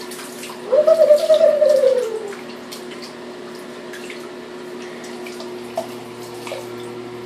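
Water poured from a plastic cup over a puppy, splashing and dripping into bathwater, over a steady hum. About a second in, a drawn-out pitched whine falls in pitch over a second and a half.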